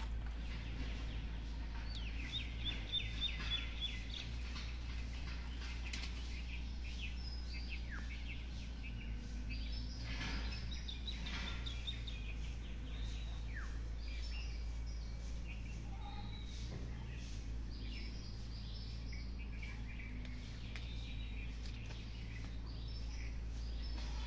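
Birds chirping and calling in the surrounding trees, with a quick run of repeated high notes about two to three seconds in and more calling around ten to twelve seconds in, over a steady low background hum.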